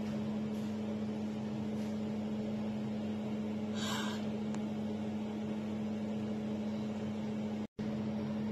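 A steady low hum over an even background hiss. A brief soft hiss comes about four seconds in, and the sound cuts out completely for a moment near the end.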